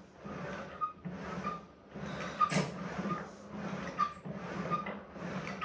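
Pilates reformer carriage rolling back and forth on its rails against two springs, pushed out and pulled in repeatedly in an even rhythm of swishing strokes.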